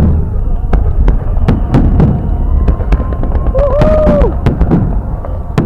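Fireworks salute going off: a rapid, irregular series of sharp bangs and pops over a steady low rumble.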